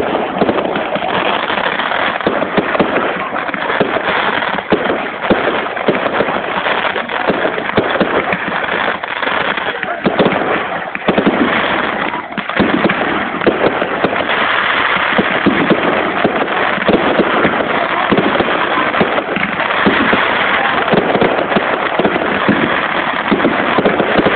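Fireworks display going off without a break: a dense, continuous crackling of many small bursts from white crackling-star shells, with sharper bangs mixed in throughout.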